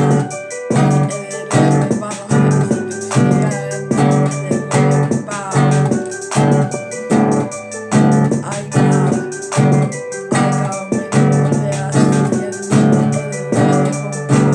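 Keyboard music with a steady beat.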